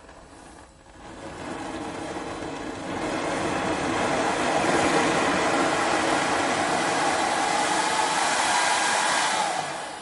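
Hair dryer's fan motor, run from a variac, spinning up about a second in and rising in steps to a steady blowing run, then winding down near the end.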